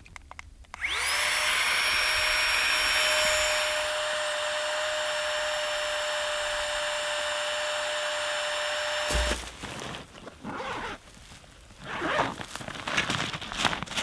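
Small electric air pump inflating a sleeping pad: it whirs up to speed just under a second in, runs with a steady whine, and cuts off abruptly about nine seconds in. Rustling handling noises follow.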